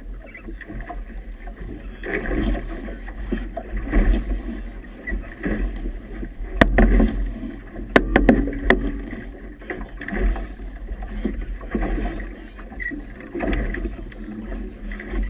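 Choppy river waves slapping and sloshing against the hull of a small boat, coming in surges every second or two in a 17–20 knot breeze with a strong current. A few sharp knocks come about halfway through.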